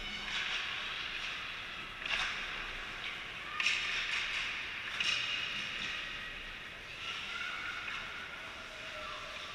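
Hockey skate blades scraping and carving on the ice, with sudden, harder scrapes about two, three and a half and five seconds in that trail off.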